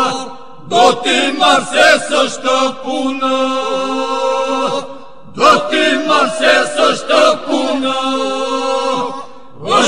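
Albanian Lab iso-polyphonic group singing a cappella: a steady low drone (the iso) is held under the ornamented lead voices. The singing comes in phrases with short breaths about half a second in, about five seconds in, and again near the end.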